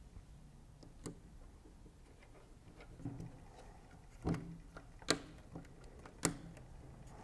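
Small screwdriver and hands working on a camera body's metal and plastic panels while screws are driven in. A handful of scattered sharp clicks and taps sound, the loudest about five seconds in.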